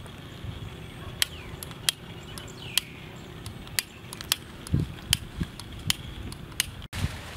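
Sharp single clicks from a long utility lighter's igniter being worked again and again, about one a second, over soft handling knocks.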